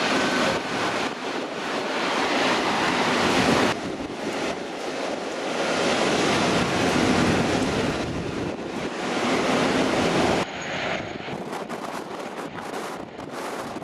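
Gusty wind buffeting the microphone over heavy rain, a loud even rushing that drops off abruptly about four seconds in and again about ten and a half seconds in.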